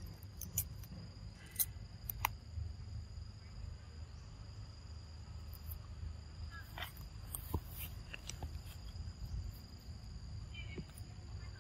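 Young macaques biting and chewing raw cucumber: scattered short, crisp crunches, several in the first couple of seconds and a cluster about seven to eight seconds in. Under them runs a steady high insect drone and a low rumble.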